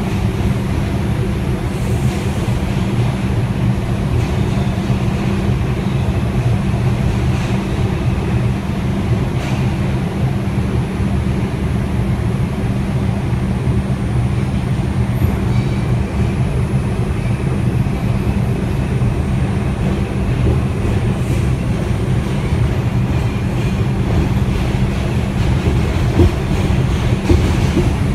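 An R142 subway car running at speed, heard from inside the car: a steady, loud rumble of the wheels on the rails.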